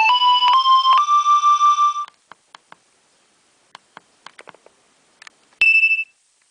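Nokia 2300 mobile phone ringtone: a rising run of electronic notes that stops about two seconds in. Then scattered faint clicks, and near the end one short high beep.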